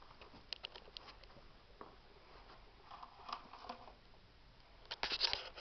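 Quiet handling noises: a few faint clicks and soft rustling, then a louder burst of rustling and clicking about five seconds in.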